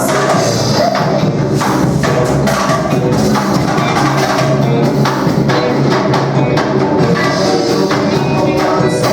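Band music with drums and percussion keeping a steady beat under pitched instruments.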